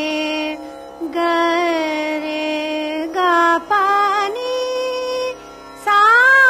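A voice singing the ascending scale (aroha) of Raag Hansdhwani in sargam syllables, stepping up note by note, each note held about half a second to two seconds, over a steady drone.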